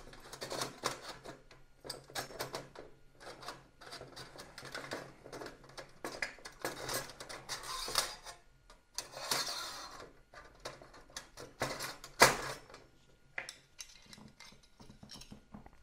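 Titanium folding hobo stove being rearranged by hand: its thin panels and a pot-support rail clink, tap and scrape in scattered light clicks. The sharpest clack comes about twelve seconds in.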